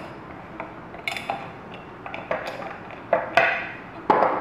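Steel ratchet, extractor socket and metal test block clinking and knocking together as they are handled, a series of irregular metal clicks with the loudest knocks near the end.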